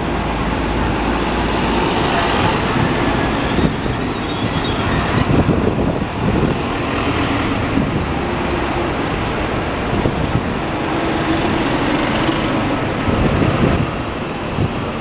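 Heavy vehicle running past amid steady traffic noise, with a faint high whine during the first few seconds.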